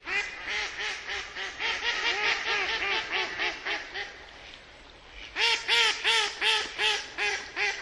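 Duck quacking in rapid runs of about four quacks a second: a long run, a pause of about a second and a half, then a second, louder run.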